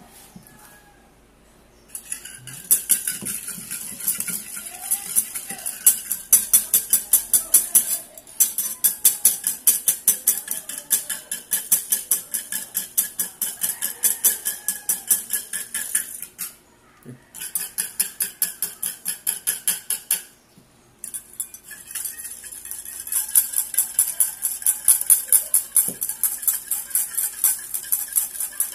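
Wire balloon whisk beating in a ceramic bowl: fast, rhythmic scraping and clinking strokes against the bowl, stopping briefly a few times. It is whipping instant coffee, sugar and water into dalgona foam.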